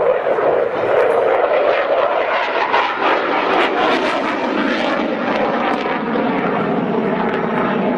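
Saab JAS 39 Gripen fighter jet flying a display manoeuvre overhead, its single jet engine a loud, steady rush of noise. It crackles through the middle seconds and its pitch drops lower toward the end.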